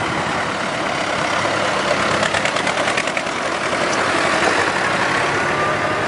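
Farm tractor's diesel engine running steadily as the tractor drives past close by.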